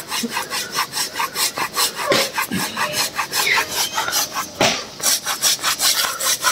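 Hand saw with a wooden handle cutting through a standing tree trunk in quick, even back-and-forth strokes, about four to five rasps a second, with a brief hitch a little past the middle. It is a felling cut, already deep into the trunk with only a little left to go.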